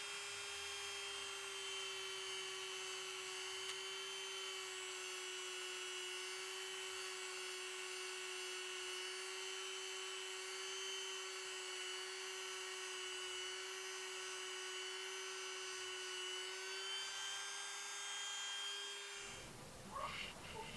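Handheld high-speed rotary tool fitted with a polishing wheel, running with a steady high whine while it polishes a hammered metal spoon-lure blank. The whine stops near the end, and a few short handling noises follow.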